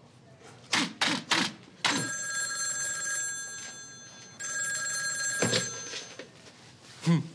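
Four quick thumps of boxing gloves on a computer keyboard, then a desk telephone's bell rings twice, each ring lasting over a second with a gap of about a second between them, stopping as the handset is picked up. A short vocal sound near the end.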